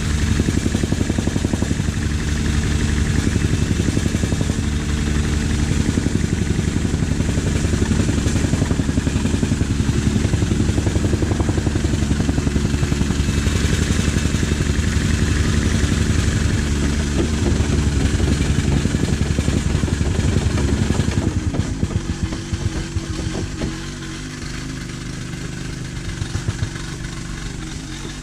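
Excavator's diesel engine running steadily, then settling to a lower, quieter run about 22 seconds in.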